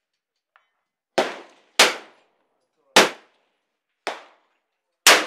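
Rifle shots from a .308 AR-10-pattern rifle (Live Free Armory PR20) fitted with a muzzle brake: five sharp reports about a second apart, each with a short echoing tail, the fourth quieter than the rest.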